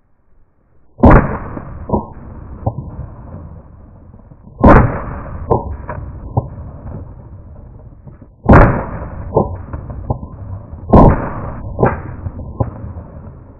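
Four shotgun shots fired at a flock of geese overhead, spaced about three to four seconds apart. Each loud blast is followed by a few fainter cracks and a fading tail.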